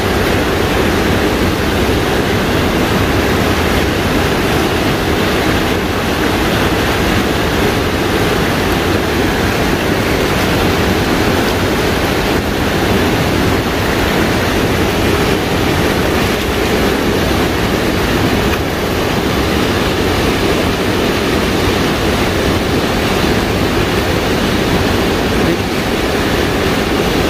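Swollen Mantaro River rushing through rapids over rocks: a loud, steady, even roar of fast water.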